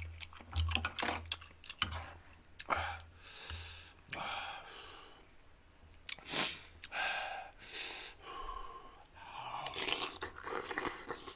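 A person eating very spicy ramen stew: chewing and slurping noodles and broth off a metal fork and spoon, with sharp clicks of cutlery on the bowl and several breathy rushes of air, as he breathes hard against the heat of the chili.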